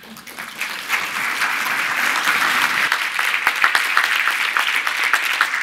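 Audience applauding: many hands clapping, building up over about the first second and then holding steady.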